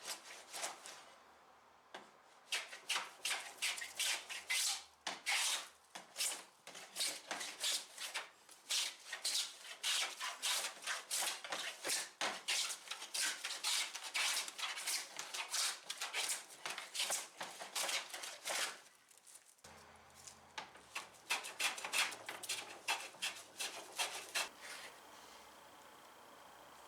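Quick, repeated hand strokes rubbing and rasping across wood, about two a second, with a short pause a little past two-thirds of the way through.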